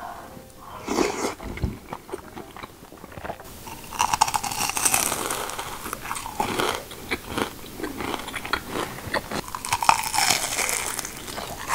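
Close-up eating sounds: soft chewing at first, then from about three and a half seconds in a long run of loud, crackly crunching as crisp battered fried food is bitten and chewed.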